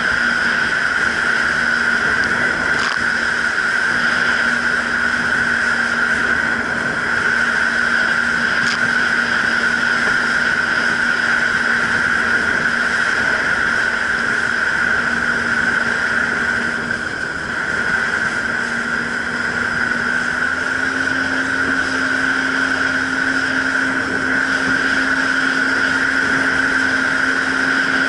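Jet ski engine and jet pump running steadily at cruising speed, a constant high whine over the rush of water. The engine note dips briefly about two-thirds of the way through, then settles slightly higher.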